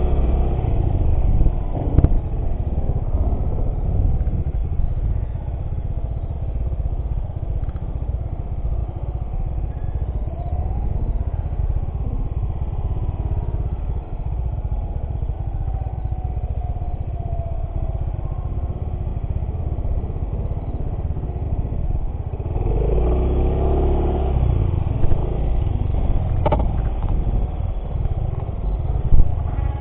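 Motorcycle engine running while riding off-road, under a heavy low rumble, with the engine pitch rising and falling; the engine swells louder about 23 seconds in.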